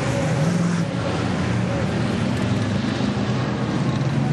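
Engines of several stock cars racing as a pack, blending into one steady drone, with the hiss of tyres throwing spray off a wet track.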